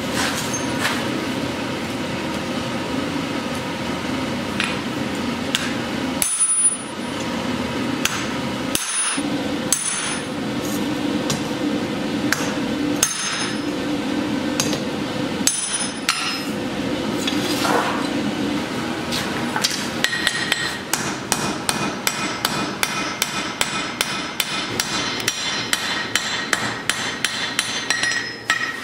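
Hand hammer striking red-hot steel on an anvil as the end of a rod is flattened, each blow with a short metallic ring. The blows are scattered at first, then become a fast, even run of about three strikes a second for the last third.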